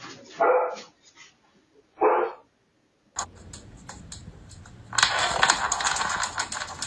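A dog barks twice, about a second and a half apart. A few seconds in, a busy clicking and rattling starts and keeps going.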